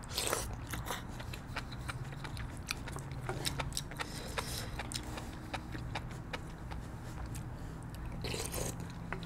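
Mouth sounds of a person eating instant ramyun noodles: wet chewing clicks throughout, with a slurp just after the start and another about eight seconds in.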